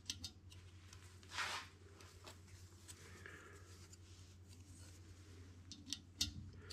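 Steel feeler gauge blades clicking and scraping as they are fanned out and slid into a piston ring's end gap to measure it: a few light clicks, one short scrape about a second and a half in, and more clicks near the end. A low steady hum sits underneath.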